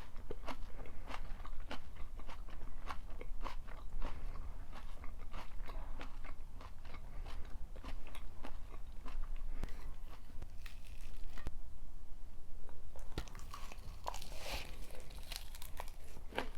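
Close-up chewing and crunching of stir-fried pork and napa cabbage, a steady run of small crisp crunches and mouth clicks, growing denser and noisier near the end.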